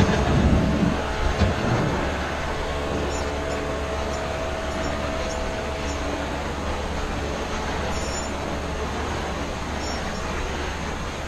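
A steady engine rumble, likely a boat motor running, with a held whine over the first several seconds and a few knocks in the first second and a half.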